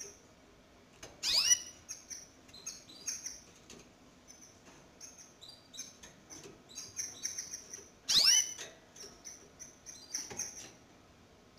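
Canaries chirping: a run of short, high cheeps, with two loud calls that glide downward, about a second in and again about eight seconds in.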